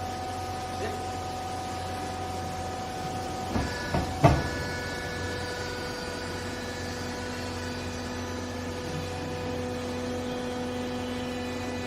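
Hydraulic used-clothes baler running, its electric motor and pump making a steady hum. A few metallic clunks come about four seconds in, and the pitch of the hum shifts as they do.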